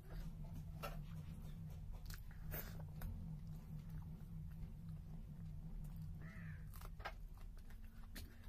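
Close-miked chewing and biting of idli and ghugni, with a few sharp crunchy clicks, over a steady low hum.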